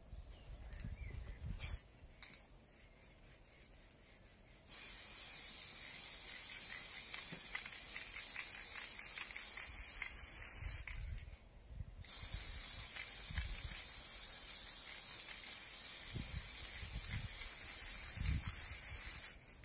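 Aerosol can of heat-resistant spray paint hissing in two long sprays, about six and seven seconds each, with a short break between them about halfway through.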